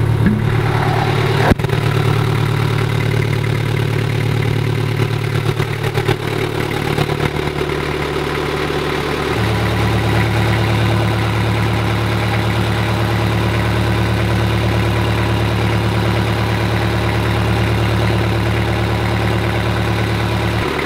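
A sailing yacht's inboard engine running steadily, heard close up inside its engine compartment, with one sharp click about a second and a half in. The engine's note shifts slightly about nine seconds in.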